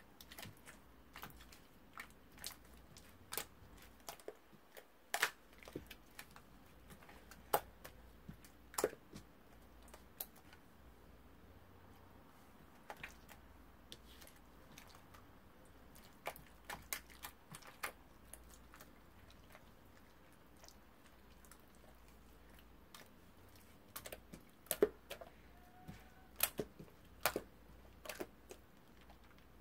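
Irregular light clicks and knocks, a few scattered taps with quiet stretches between, over a faint steady low hum.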